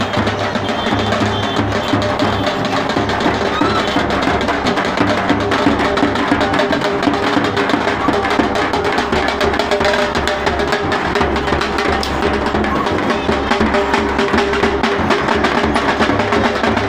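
Several two-headed barrel drums (dhol) beaten continuously in a steady, driving rhythm, with crowd chatter underneath.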